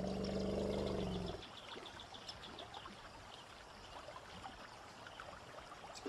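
A hippopotamus's low, pitched grunt for the first second and a half, then faint trickling and splashing river water.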